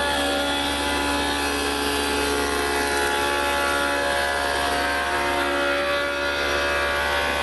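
Spindle moulder running at speed, its stacked cutter block machining a tongue-and-groove profile into the edge of a wooden board fed past by hand: a steady whine of many tones over a constant low hum.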